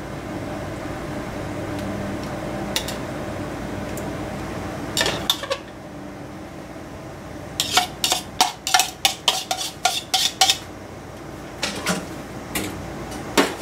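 Metal kitchen tongs clicking and clinking against bowls in short sharp taps, with a quick run of about a dozen clicks in the middle. A steady low hum runs underneath and drops away about halfway through.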